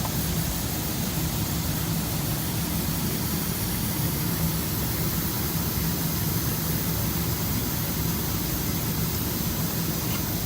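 Steady machine noise: an even hiss over a low hum, unchanging throughout.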